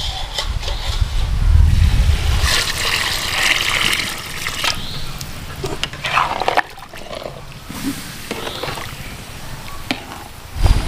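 Warm water poured from a steel bucket into a pan of curry, splashing and trickling for a couple of seconds, followed by a few knocks of a ladle in the pan.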